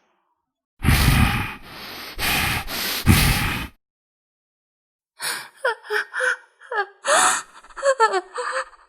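Stock sound effects of a person gasping: a few loud breathy gasps, then, after a short pause, a quick run of shorter voiced gasps whose pitch slides up and down.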